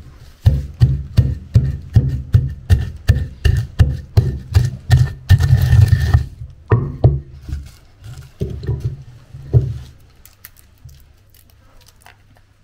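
Wooden pestle pounding dried cocoa beans in a wooden mortar: hollow thuds at about three a second, each with a crackle of beans cracking. The strokes thin out and stop about ten seconds in, leaving faint crackles of the crushed beans being handled.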